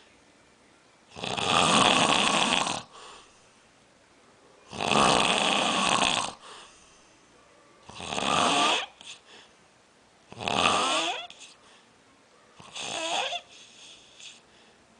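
Snoring: five rasping breaths about every three seconds. The later ones are shorter and carry a whistling tone that slides up and down.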